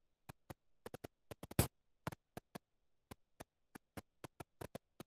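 A string of faint, irregular clicks over otherwise dead silence, about four or five a second, with one louder click about one and a half seconds in.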